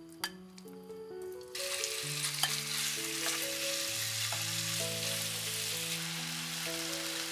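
Spiced chicken thigh pieces sizzling in hot oil in a nonstick frying pan, the sizzle starting suddenly about a second and a half in as the chicken goes into the pan, then stirred with a spatula. Soft background music with piano-like notes plays throughout.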